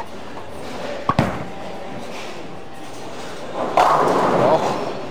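A bowling ball, a Brunswick Intense Mindset, lands on the lane with a thud about a second in and rolls down it, then crashes into the pins with a loud clatter a little over two and a half seconds later.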